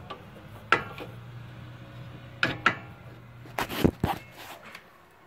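Irregular metal clinks and knocks from a wrench and sway bar link hardware under a car while the link's bolt is being fitted: about six sharp taps, the loudest about four seconds in.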